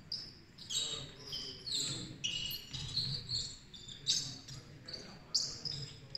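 Basketball shoes squeaking on a hardwood court, many short high squeaks, some sliding in pitch, with the ball bouncing now and then.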